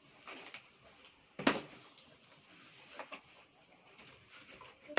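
Scissors cutting through packing tape on a cardboard box and the flaps being pulled open: a few sharp snips and crackles, the loudest about a second and a half in.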